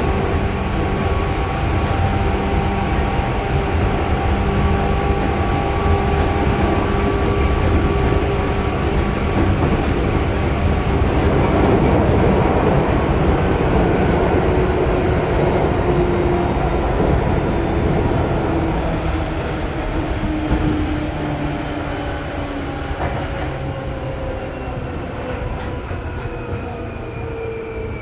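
Seibu 2000-series electric train running, heard from on board: wheel and track rumble with steady whining tones from the traction motors and gears. In the last ten seconds or so the whine slides steadily lower and the sound eases off as the train slows.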